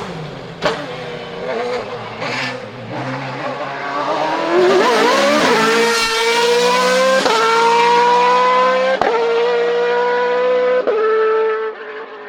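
Hillclimb race car engine at high revs, pulling hard uphill through about four upshifts, each gearchange a sharp break in the rising engine note. The sound drops away near the end as the car moves off.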